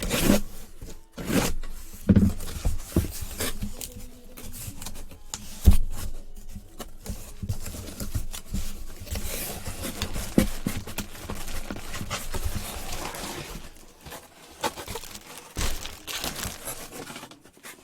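Plastic wrapping crinkling and tearing, and cardboard packaging being handled as a sports-card box is opened, with scattered knocks and a sharp thump about six seconds in.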